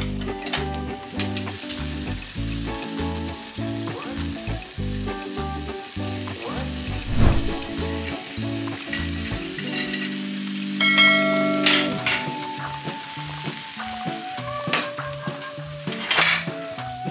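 Spinach and oat pancake batter sizzling in an oiled frying pan, over background music with a steady bass pattern.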